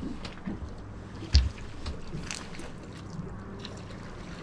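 Small fishing boat on the water: a steady low hum with wind and water sound, and one sharp thump on the boat about one and a half seconds in, with a few lighter clicks.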